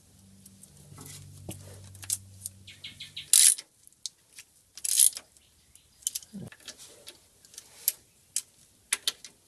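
Socket ratchet clicking as the bolts of an automatic transmission's oil pan are run in, with sharp metal clicks and clinks of tools and bolts; the two loudest are brief ratcheting bursts about three and a half and five seconds in. A steady low hum stops a little over three seconds in.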